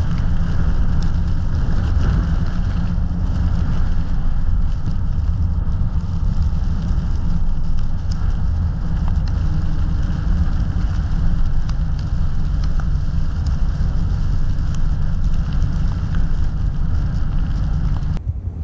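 Car driving on snowy roads: a steady low rumble of tyres and road noise with a hiss above it, cutting off abruptly just before the end.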